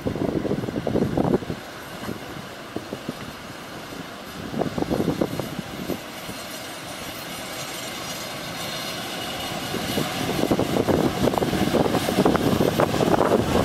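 Heritage Tait electric suburban train approaching and running past, its wheels clacking over the rail joints. It grows steadily louder through the second half as it nears.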